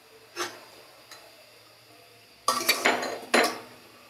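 A spatula clattering and scraping against a karai as browned fried onions are lifted out of the oil, with a quick run of metallic clinks and knocks about two and a half seconds in.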